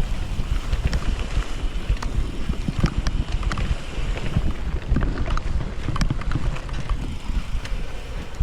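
Mountain bike ridden over a rough dirt trail: wind rumbling on the microphone along with tyre noise and frequent irregular clicks and knocks from the bike rattling over bumps.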